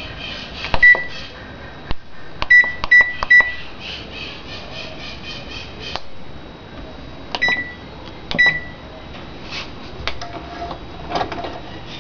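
Control panel of a Brastemp BWT08ABBNA washing machine beeping as its buttons are pressed to set a wash cycle: one beep about a second in, three quick beeps a couple of seconds later, then two more spaced beeps, each with a small click of the key.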